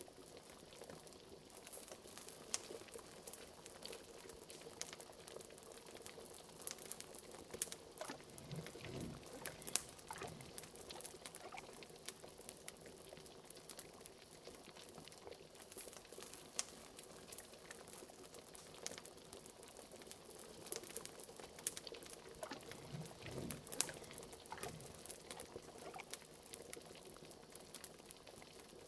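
A cauldron of liquid bubbling steadily, with frequent small sharp pops and crackles and two spells of deeper, bigger bubbles, about a third of the way in and again near the three-quarter mark.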